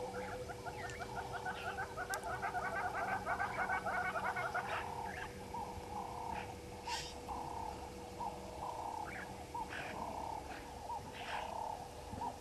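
Frogs calling: a dense chorus of rapid, pulsing calls for the first four or five seconds, then thinning to short separate calls repeated about once or twice a second.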